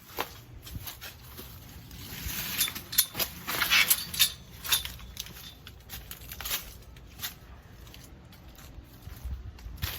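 Footsteps crunching and scuffing, with irregular clicks and rustles, loudest and busiest a couple of seconds in, then sparser.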